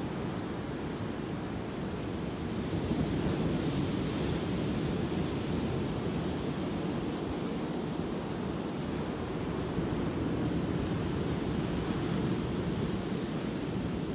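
Ocean surf breaking on a beach: a steady rush of waves and whitewater, getting a little louder about three seconds in.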